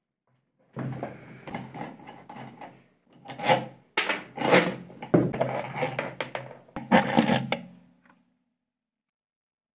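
Metal scraping, rubbing and clinking of hand-tool work on a washing machine's drum shaft and its bolt, with several sharper knocks in the middle; it stops about eight seconds in.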